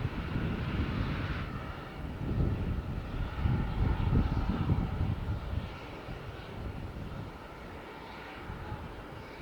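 Steam locomotive running with a steady rumbling drone, gusts of wind buffeting the microphone, the sound easing off from about halfway through.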